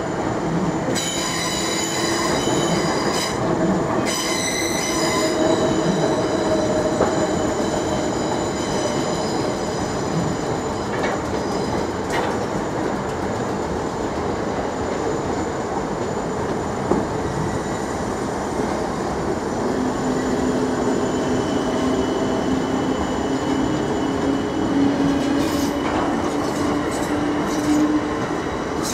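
Electric multiple-unit passenger trains running at low speed through the station. High-pitched wheel squeal sounds over the running noise in the first few seconds. In the last third, a low motor whine climbs slowly in pitch as a train accelerates away.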